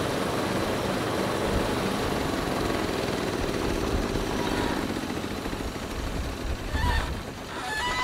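Engine of a homemade bandsaw sawmill running steadily, with two short high-pitched sounds near the end while a freshly sawn slab is dragged off the log.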